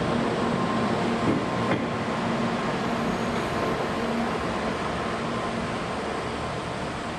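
Tōkaidō Shinkansen train running, a steady rushing noise with a low hum that slowly fades. There are two faint clicks between one and two seconds in.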